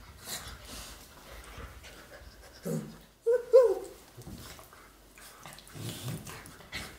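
A puppy and a young dog play-fighting: a rising yelp and then two short, loud yaps around the middle, a low growl near the end, and scuffling on the rug in between.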